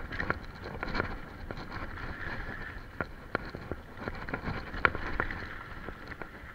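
Mountain bike rolling fast over a dirt trail and onto gravel: tyre noise with many irregular sharp clicks and rattles from the bike over the bumps, the loudest knock about five seconds in, and wind on the microphone.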